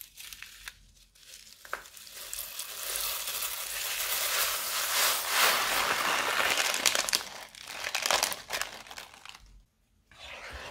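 Tiny beads pouring out of a plastic piping bag onto slime: a dense pattering hiss that builds over a couple of seconds and fades out about seven to nine seconds in. Before that come small crinkles from the plastic bag as it is handled.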